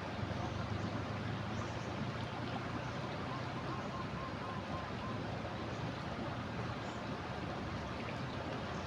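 Floodwater of a swollen river rushing steadily, a constant roar of water.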